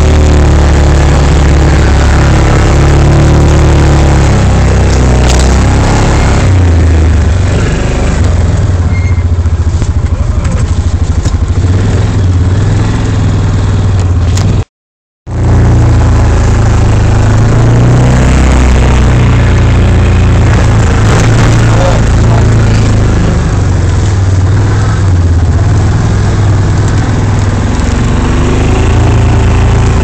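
Yamaha Rhino side-by-side's engine running under load as it drives through deep snow, its pitch rising and falling with the throttle. The sound cuts out completely for about half a second midway.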